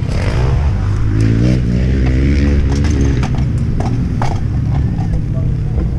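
KTM 250 SX two-stroke motocross engine running at low revs, its pitch rising a little about a second in. Several sharp mechanical clicks come through the middle.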